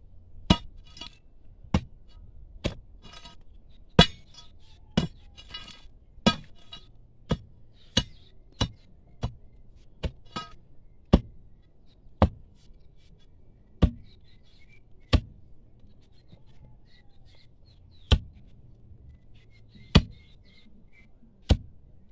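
Sharp clinks of a metal digging tool striking stone in rocky ground, about seventeen strikes at uneven intervals that thin out in the second half. Between the early strikes there is some scraping and rattling of loosened stones.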